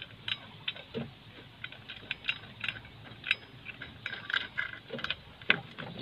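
Irregular metallic clicks and clinks as the steel travel-pedal bracket of a Komatsu PC60 excavator is worked loose and pulled off by hand.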